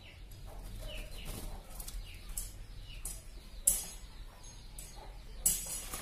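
Pigeons bathing in a shallow tub of water, splashing and flapping their wings in short irregular bursts, with two louder splashes about halfway through and near the end. Faint short bird calls are heard between them.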